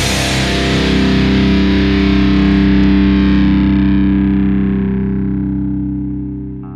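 Metalcore band's closing chord on heavily distorted electric guitar, struck once as the drums stop and left to ring out. Its bright top fades first and the whole chord dies down over the last couple of seconds.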